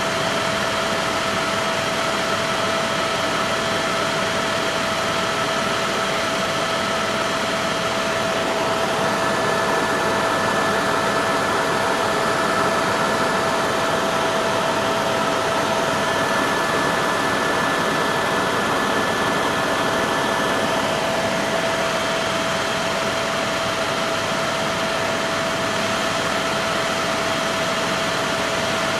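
Tour helicopter in flight, heard from inside the cabin: a steady engine and rotor drone with a constant whine running through it.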